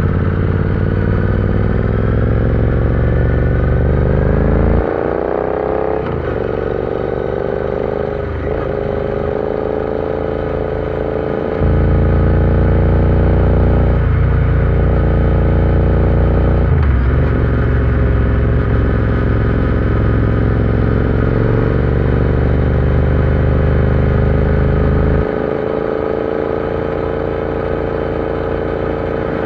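Royal Enfield Interceptor 650 parallel-twin engine running under way. Its pitch climbs over the first few seconds as the bike accelerates, then keeps rising slowly, with a few brief dips in the note.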